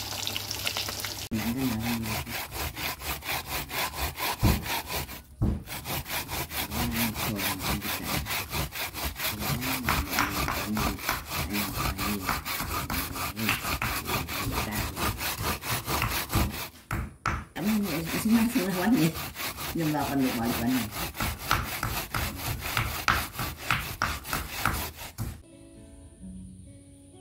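Food being grated by hand on a flat metal grater: rapid, even scraping strokes that stop near the end. Fish sizzles in hot oil for about the first second.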